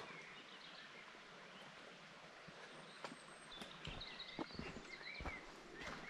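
Faint footsteps of hikers walking a mountain trail, with birds chirping in the background; the footfalls come more often in the second half.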